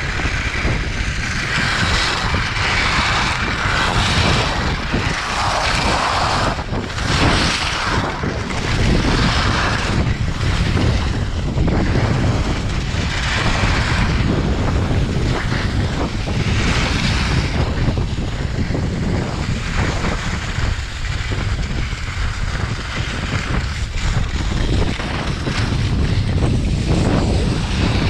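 Wind buffeting the microphone of a skier's action camera at speed, a constant low rumble, with swelling hiss of skis carving on packed snow through the turns of a giant slalom run.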